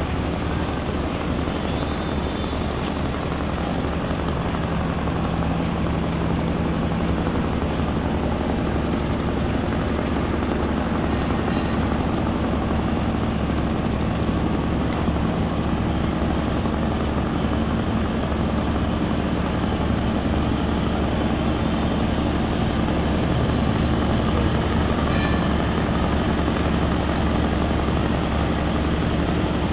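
Diesel engines of a large river passenger launch running steadily as it comes alongside, a continuous low drone.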